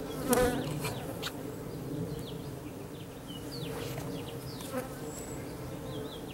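Russian/Carniolan honey bees buzzing around their newly installed hive: a steady hum with a louder buzz swelling up near the start and again a little before five seconds in, as bees fly close by.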